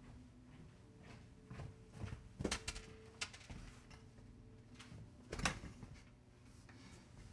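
Faint knocks and movement noises from a person moving about the room, with two sharper thumps about two and a half and five and a half seconds in.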